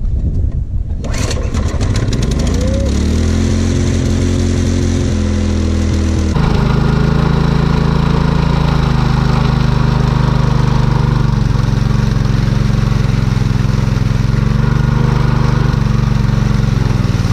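Small petrol-engine portable water pump starting up: the engine catches about a second in and its pitch rises for a couple of seconds before it settles into a steady run. About six seconds in the note steps up louder and harsher, and by the end it is pumping water out of its outlet in a splashing stream as it drains the pool.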